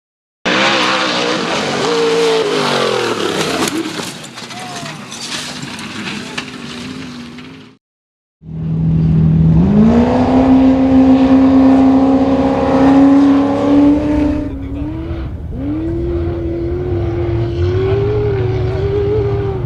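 Off-road race vehicle engines at speed, in two cuts. First an engine running hard under a loud hiss of noise, its pitch falling over a couple of seconds. After a brief break, an engine climbs in revs and holds a high, fairly steady pitch, stepping up slightly near the end.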